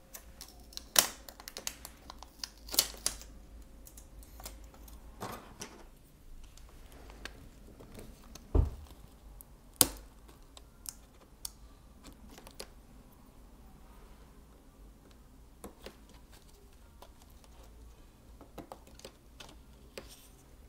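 Irregular small clicks and taps of fingers and a small tool working at the battery and speaker-cable connectors inside an opened Lenovo ThinkPad X1 Carbon Gen 4, as the connectors are being unplugged. A few clicks stand out louder, and there is one duller knock about eight and a half seconds in.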